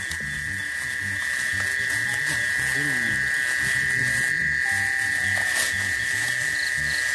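Steady high-pitched buzzing of an evening insect chorus, with irregular low pulsing calls beneath it.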